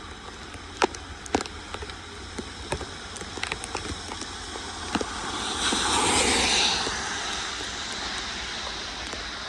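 Rain pattering with scattered heavier drops tapping. About halfway through a rushing noise swells and fades back into a steady hiss.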